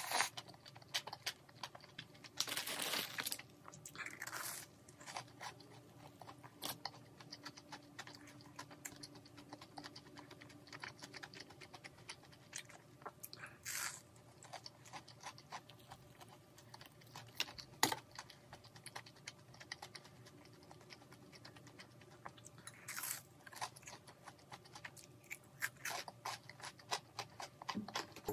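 A person eating: a slurp of malatang noodles near the start, then chewing with crisp, crunchy bites of battered fried shrimp, a run of small wet clicks and crackles.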